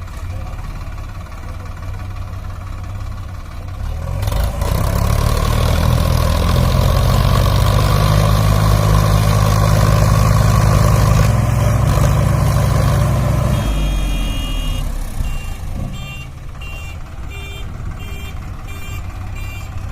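Diesel engines of the tractor and JCB 3DX backhoe rev up about four seconds in and hold at high revs under heavy load for about nine seconds, straining to pull a stuck, fully loaded trolley, then drop back to idle; the pull fails. In the last few seconds a reversing alarm beeps repeatedly.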